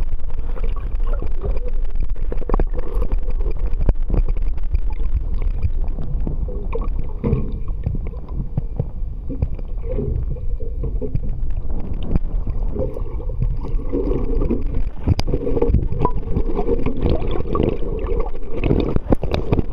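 Muffled rushing and gurgling of water around a submerged underwater camera as it is towed along on the fishing line, with scattered clicks and knocks against the housing.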